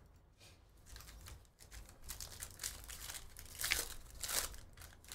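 Trading-card pack wrapper being torn open and crinkled: a run of crackling rustles that start about a second in and grow louder, loudest a little under four seconds in.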